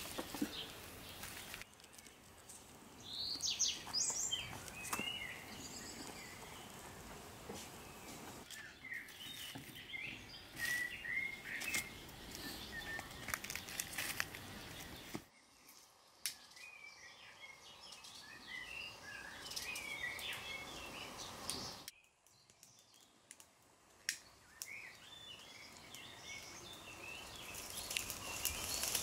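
Small birds chirping and twittering throughout, with dry twigs and brushwood rustling, crackling and snapping as they are handled and stacked for a fire.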